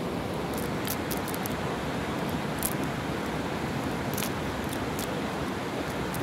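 Light clicks and rustles from a cast net being handled, its weighted edge with small sinkers knocking together, scattered irregularly about ten times. A steady rushing noise fills the background.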